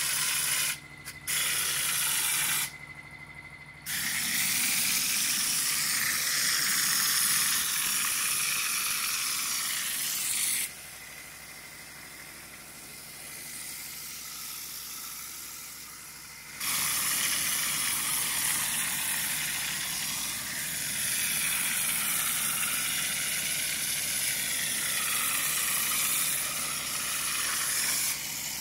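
Compressed-air mortar hopper gun spraying cement mortar: a loud steady hiss of air and spray that cuts out briefly twice in the first few seconds and again for about six seconds in the middle. A steady low hum runs underneath throughout.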